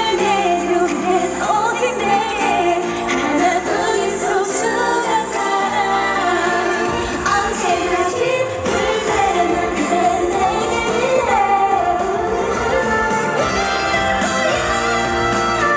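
Female K-pop group singing live over a pop backing track through stage loudspeakers, the sung melody rising and falling over the band.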